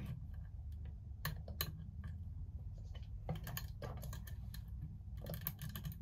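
Small irregular metal clicks and light scraping as a lock pick and tension wrench work the wafers in the keyway of a vintage Yale wafer padlock.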